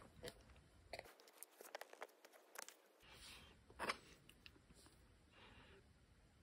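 Near silence with a few faint plastic clicks, taps and light rustles as a 6-inch G.I. Joe Classified action figure is worked onto the pegs of its black plastic stand and handled. The loudest click comes just under four seconds in.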